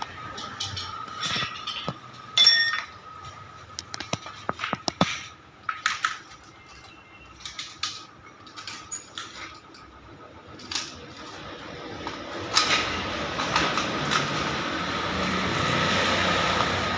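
Workshop background noise: scattered clinks and knocks, the sharpest about two seconds in, over a faint steady whine. A steady hiss builds up over the last few seconds.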